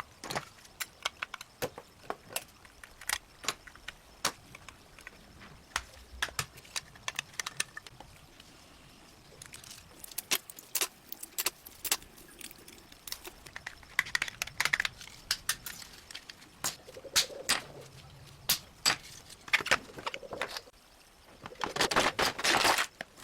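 Irregular small clicks, taps and metallic clinks of tools and small parts being handled on a diecast model car, with a denser run of clinks near the end.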